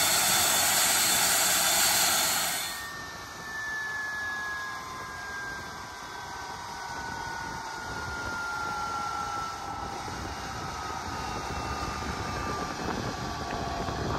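F-86 Sabre jet engine: a loud, steady rush that cuts off abruptly about three seconds in, followed by a turbine whine falling slowly in pitch as the engine winds down.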